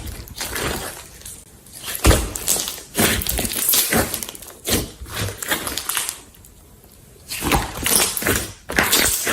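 Slime being squeezed and worked by hand, giving irregular wet squishing and crackling noises, with a quieter pause about six seconds in.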